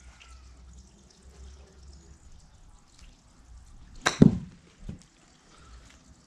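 A golf iron strikes a ball off a hitting mat with a sharp click about four seconds in. A moment later comes a louder, low thud as the ball hits the hanging tarp and artificial-turf backstop, then a softer thump as it drops.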